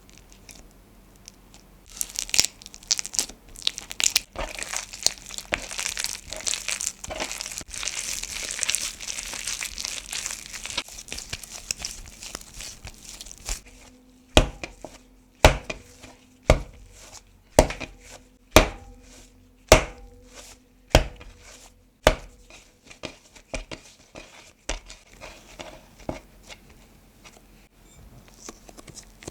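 Bread dough being kneaded by hand: sticky rubbing and tearing sounds for about ten seconds, then about eight loud slaps roughly a second apart as the dough is thrown down onto the work surface, followed by quieter handling.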